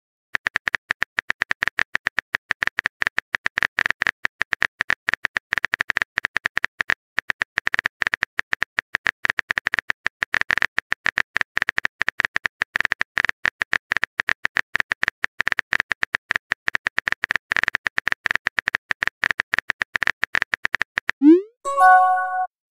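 Rapid phone-keyboard clicks from a texting app's typing sound effect, running for about twenty seconds. Near the end they stop and a rising pop and a short chime sound as the message is sent.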